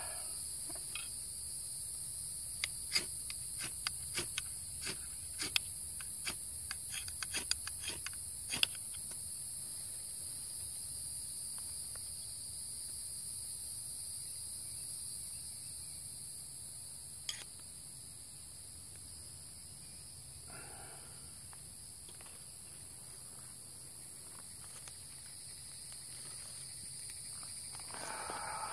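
A quick run of sharp strikes or scrapes in the first third, as a jute-twine tinder bundle is being lit, then a single strike later on. Under it runs a steady high insect buzz, and two soft breathy sounds come in the second half.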